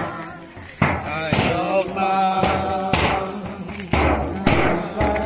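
A group of voices singing a Christmas carol together, with sharp percussive beats keeping time that grow heavier about four seconds in.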